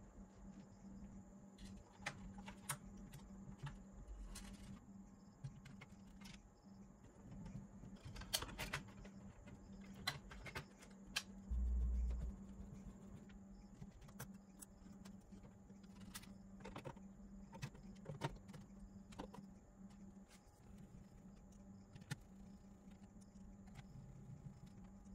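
Faint scattered clicks and taps of a screwdriver and hands working on screws and parts in a Polytron mini compo boombox's plastic casing, over a steady low hum, with one short low thump about halfway through.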